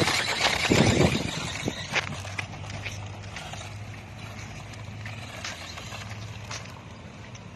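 Battery-powered RC toy monster truck running over sandy, gritty ground: its motor and knobby tyres are loud for the first couple of seconds, then fade as it drives away, with scattered small clicks.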